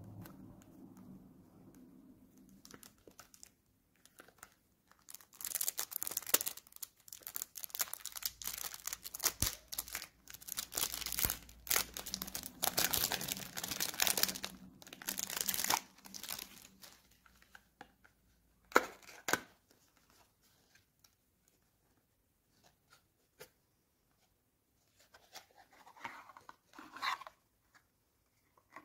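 Clear plastic wrapping being torn and crinkled off a small cardboard product box, a dense crackle that runs for about ten seconds, followed by a sharp click and a few soft cardboard rustles as the box is opened.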